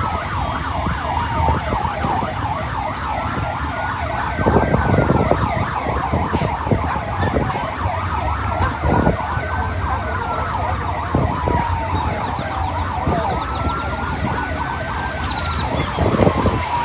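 Vehicle siren wailing slowly, its pitch rising and falling about every five seconds, over the steady running of motorcycle engines.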